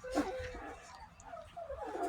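Two-week-old puppies whimpering, a string of short squeaky whines that bend up and down in pitch, with more of them near the end.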